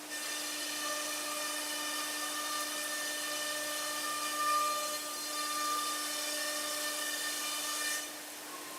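SCM Startech CN Plus CNC boring machine running its drilling spindle, a steady whine that stops suddenly near the end.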